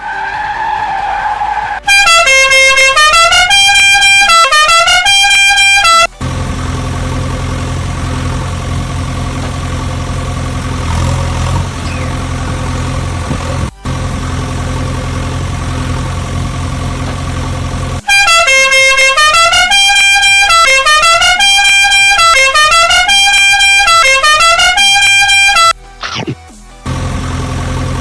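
Electronic toy-vehicle sound effects: a loud tune of horn-like beeps that steps up and down in pitch, played twice. Between the two, a steady low engine-like drone.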